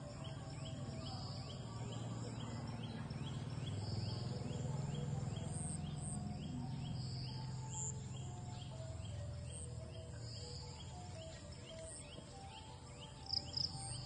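Insects calling outdoors: a steady high buzzing and a short falling chirp repeated about two or three times a second, over a low steady hum. Two sharp clicks near the end.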